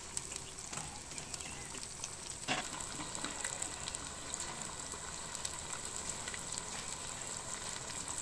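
Chopped tomatoes and onions sizzling in oil in a clay cooking pot, a steady crackle with small pops, while spices are added. A single light knock comes about two and a half seconds in.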